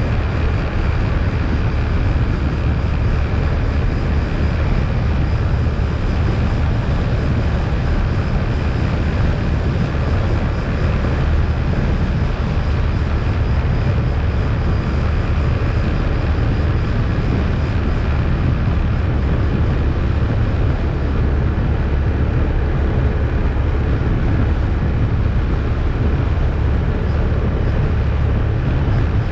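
ATV engine running steadily under way, a continuous loud drone with a heavy low rumble and a faint steady whine above it.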